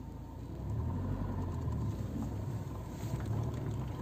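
Car running, heard from inside the cabin: a steady low rumble that grows a little louder about a second in.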